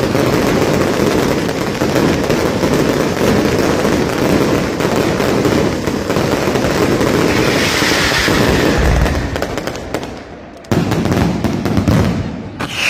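Night mascletà fireworks: a dense, unbroken barrage of firecracker bangs and crackling. A falling whistling tone cuts through about eight seconds in. The barrage fades about ten seconds in, then starts again abruptly.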